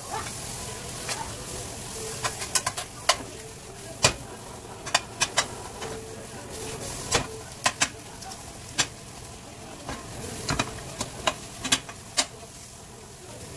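Scrambled eggs with onion and ham sizzling steadily in a nonstick frying pan while a spoon stirs and breaks them up. The spoon knocks and scrapes against the pan in many sharp, irregular clicks.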